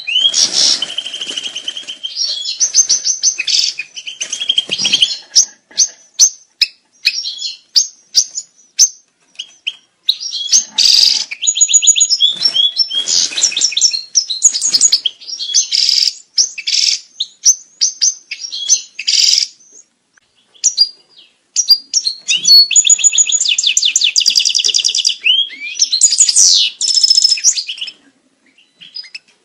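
European goldfinch singing its breeding-season song: fast, high twittering phrases with quick repeated-note trills and buzzy notes, broken by short pauses.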